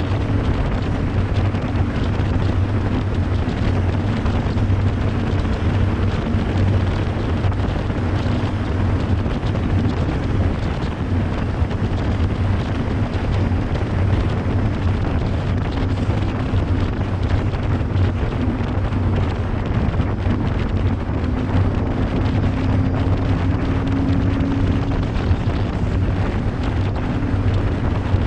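22-foot Cheetah Wildcat deck boat with a Mercury Bravo sterndrive running steadily at high speed, around 55 to 60 mph, with a low engine drone under the rush of wind on the microphone and water along the hull.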